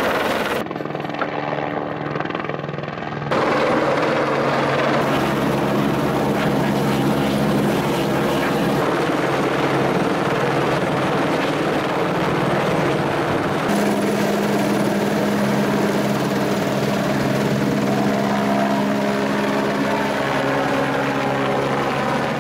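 Helicopter flying overhead: a steady, loud rotor and turbine din with a low hum. It drops for a couple of seconds near the start, then comes back louder.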